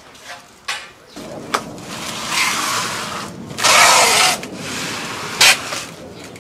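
Plastic baskets being handled and shifted on a concrete floor: a few sharp knocks, and about halfway through a louder scraping noise lasting under a second.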